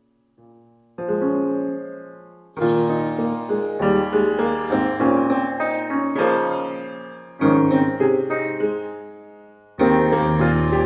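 Background music: piano or electric piano chords, starting softly and swelling in louder about a second in, each chord fading before the next is struck.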